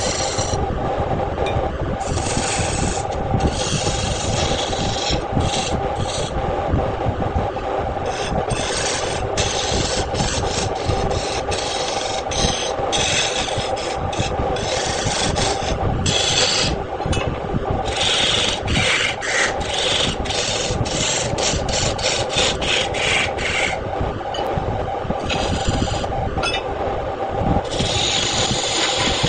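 Wood lathe running with a steady hum while a tool rubs and scrapes against the spinning wood in repeated passes of a few seconds each, with short breaks between them.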